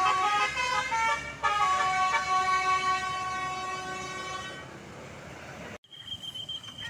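Tourist bus's multi-tone 'Basuri' telolet horn playing a quick run of notes, then holding one long chord that fades away over a few seconds.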